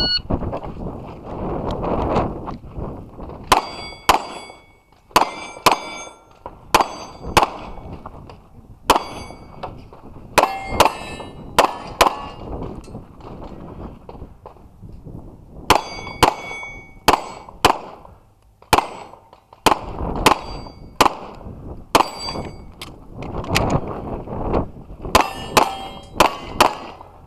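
A short electronic shot-timer beep, then quick strings of pistol shots from a Sig Sauer P320 X5 Legion, most followed by the ring of a struck steel plate. The shots come in two runs with a pause of a few seconds between.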